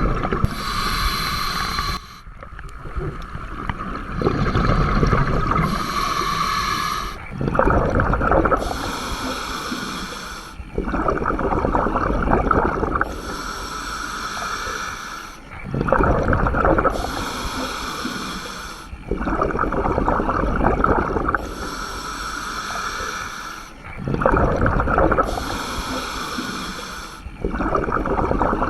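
Scuba diver breathing through a regulator underwater: a hissing inhale, then a louder bubbling exhale, repeating about every four seconds.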